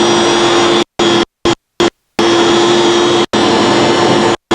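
X-Carve CNC router with a DeWalt 611 trim router as its spindle, running steadily while it carves wood: a constant whine over a rushing noise. The sound cuts out completely to silence several times, in a cluster of short gaps about a second in and once more near the end.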